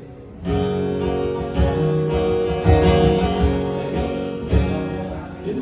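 Live band music between sung lines, led by strummed acoustic guitar, with a steady low beat. The band comes in fuller about half a second in.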